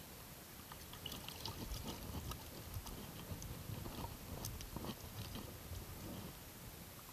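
Faint irregular clicks and rustling, starting about a second in and dying away about six seconds in.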